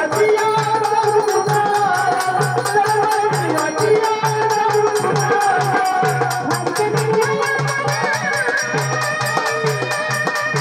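Traditional Marathi folk music: a hand drum keeps an even, repeating beat with fine jingling ticks over it, under a wavering melody line.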